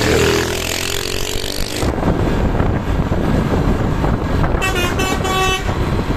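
Bus's multi-tone "telolet" basuri horn sounding a gliding melody that ends about two seconds in, followed by the loud, steady noise of a vehicle driving past. Near the end the horn sounds again in two short blasts.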